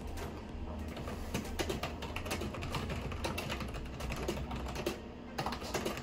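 Fast typing on a computer keyboard: a quick, uneven run of key clicks with a brief pause about five seconds in.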